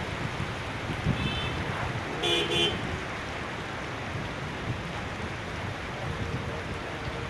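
A vehicle horn honks once briefly, about two seconds in, with a fainter short toot a second earlier. Both sound over a steady wash of traffic noise and heavy rain.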